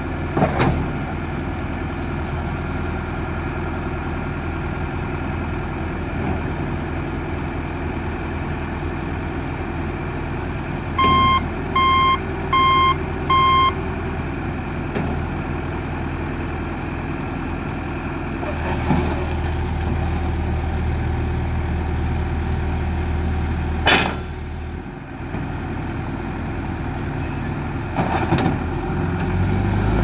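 A 2006 John Deere 310SG backhoe loader's diesel engine runs steadily while the backhoe arm is worked, with a sharp knock about half a second in and another near the end. About midway its backup alarm gives four short beeps, and at the very end the engine starts to rev up.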